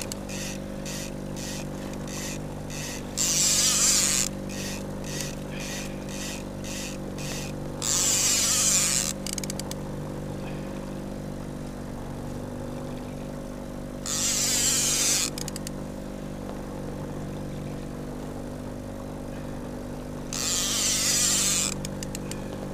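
Fishing reel being cranked in, ticking about twice a second, over the steady drone of the trolling boat's engine. Four times a loud hiss about a second long rises over it.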